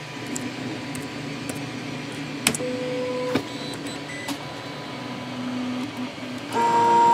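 Printrbot Simple Metal 3D printer's stepper motors whining at steady pitches as the print head homes on a G28 command. The moves come in short stretches at different pitches, with clicks at the start and end of one move and a louder move near the end. The homing runs normally with the replaced inductive probe.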